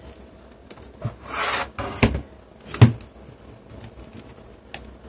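Plastic screen-bezel clips on an HP 250 G6 laptop lid being pressed home by hand: a brief scrape of plastic rubbing about a second in, then two sharp snaps, the second the loudest, and a faint click near the end.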